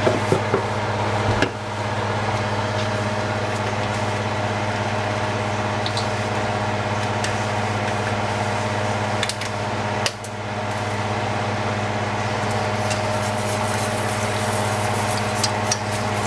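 A small motor running with a steady hum, with a few light knocks.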